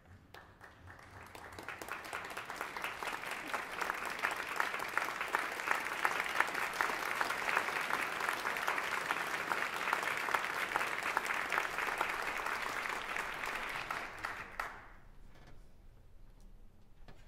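Theatre audience applauding, the clapping building over the first few seconds, holding steady, then dying away about fifteen seconds in.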